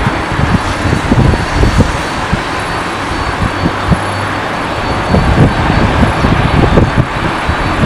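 Boeing 767 twin jet engines, a loud steady rumble and roar, with wind buffeting the microphone in low gusts throughout.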